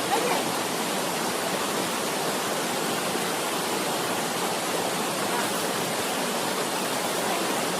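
Waterfall and stream water rushing over rocks: a steady, even rush.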